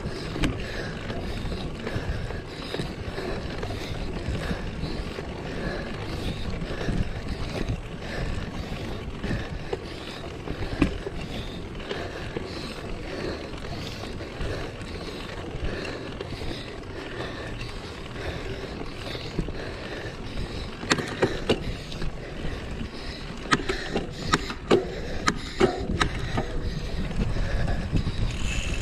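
Mountain bike ridden off-road: a steady rumble of tyres and wind on the microphone, with a run of sharp rattles and knocks in the last third.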